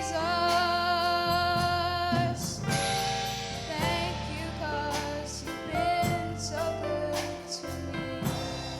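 Children's choir singing a gospel worship song with instrumental accompaniment, with held notes, fading out near the end.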